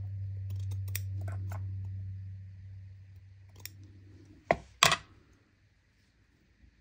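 Handwork with small craft tools while covering buttons: a few light clicks, then two sharp snips or clicks about half a second apart. A low hum under the first half dies away.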